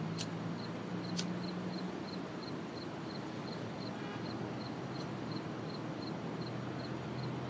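Outdoor background noise with a steady low hum, and a short high chirp repeating about three times a second. Two sharp clicks come near the start, about a second apart.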